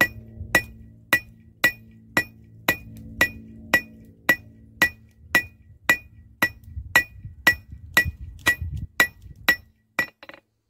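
Hand hammer striking hot rebar on a steel anvil, drawing the end out to a long square taper. The blows come in a steady rhythm of about two a second, each with a bright metallic ring.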